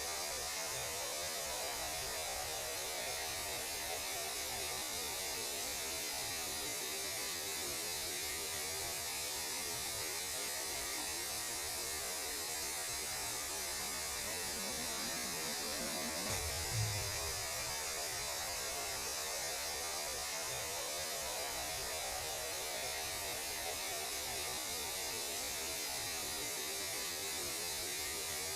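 Steady static hiss with an underlying hum, presented as the noise of space radiation rendered as sound. There is a brief low thump about seventeen seconds in.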